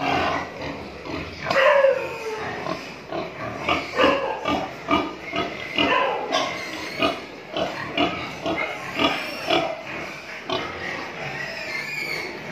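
Pigs grunting and squealing in a rapid, irregular run of short calls, with a loud, high squeal falling in pitch about two seconds in.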